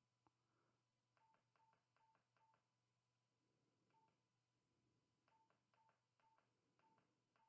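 Very faint short keypad beeps from a BKR 5000 radio as its keys are pressed: a run of four, a single one, then another run of about five.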